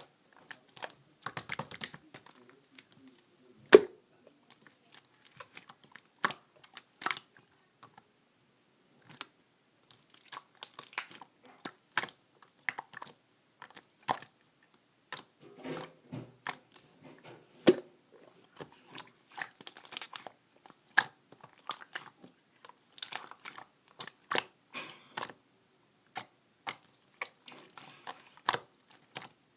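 Irregular small clicks, taps and crunchy rustling, spaced unevenly with short pauses.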